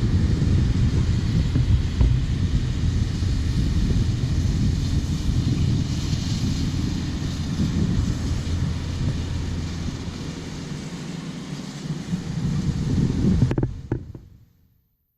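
Steady low engine rumble with wind on the microphone, fading out to silence about fourteen seconds in.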